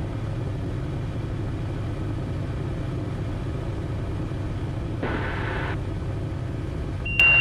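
Steady low rumble of the NX Cub's engine at idle through the landing on a grass strip, heard over the cockpit headset intercom. A short rush of hiss comes about five seconds in, and a thin high beep starts right at the end.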